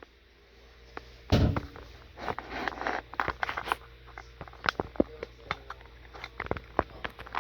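A crossbow shot: one loud, deep thump about a second in, followed by a scatter of sharp clicks and small rattles.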